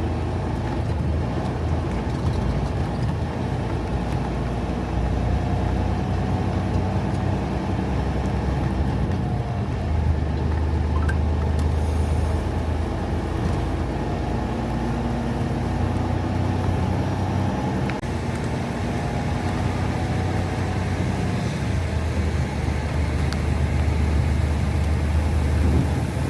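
Peterbilt 389 semi truck's diesel engine idling with a steady low hum while the rig sits stopped in traffic.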